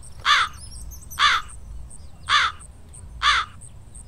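A crow cawing, one harsh caw about every second, four caws in a row at a very even pace.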